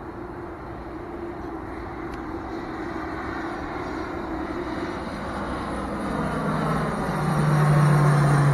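Twin-engine turboprop aircraft on approach, passing low overhead: its engine and propeller noise grows steadily louder, and a strong low propeller hum comes in about six seconds in as it nears.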